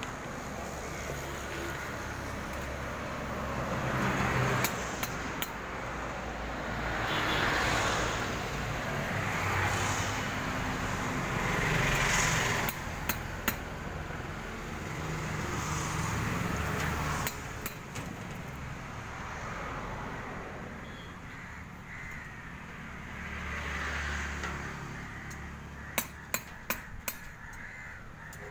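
Crows cawing repeatedly in the open, over a low background rumble. Several quick clusters of sharp clicks or taps are heard, the last burst of about five near the end.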